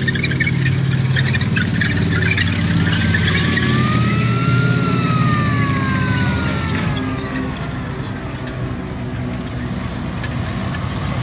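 WWII tracked armoured vehicles driving past: engine running steadily and tracks clattering, with a high squeal that rises and then falls over a few seconds near the middle.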